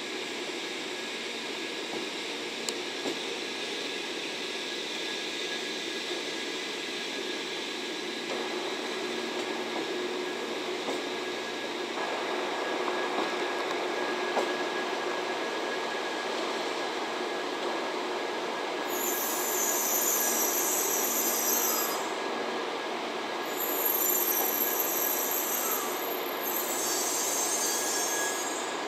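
Shinkansen 923 'Doctor Yellow' inspection train rolling slowly past with a steady running noise and a thin steady whine, getting louder about halfway through. In the last ten seconds a high-pitched squeal comes three times, each lasting a couple of seconds, typical of wheels squealing at low speed.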